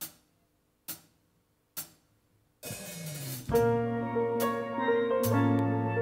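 Three sharp clicks about a second apart count the band in, and about a second later a steel band with drum kit and bass starts playing after a short build-up.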